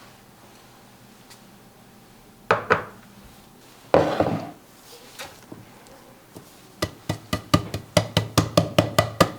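Hard knocks in a kitchen: two quick knocks, then a heavier one, then a fast run of about a dozen sharp taps, four or five a second, near the end.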